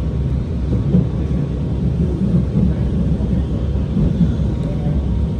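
Alstom R151 metro train running along the track: a steady low rumble of wheels on rail and car body, without clear motor whine or distinct wheel clicks.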